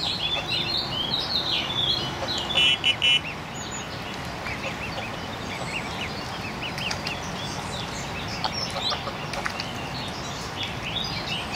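Greylag goslings peeping: many short, high, rising chirps, one after another, over a steady background hiss.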